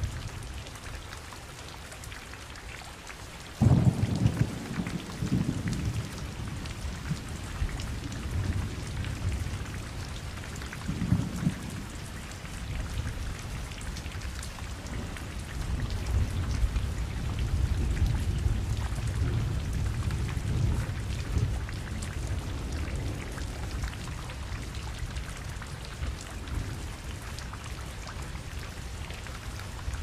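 Heavy rain falling steadily, with thunder: a sudden loud clap of thunder almost four seconds in that rumbles on for a couple of seconds, a shorter burst around eleven seconds, and a long low roll in the middle of the stretch.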